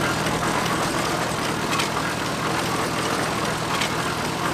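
The McCormick Deering No. 15 baler's onboard engine running steadily under load, belt-driving the baler, with two light knocks about two seconds apart.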